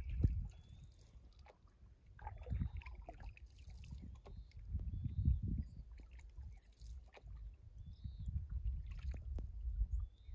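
Wind noise buffeting the microphone in uneven gusts while a canoe is paddled, with paddle strokes and water splashing against the hull.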